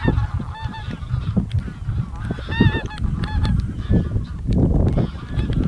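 A flock of wild geese flying over, calling in repeated short honks, the loudest cluster about two and a half seconds in, over a steady low rumble.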